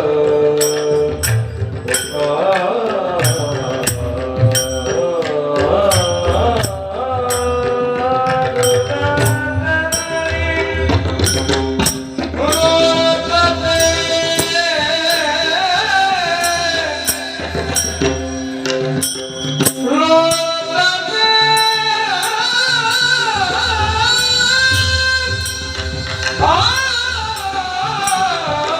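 Marathi gatha bhajan: a singer holds long, ornamented devotional melody lines with glides between notes, over a steady rhythmic percussion accompaniment.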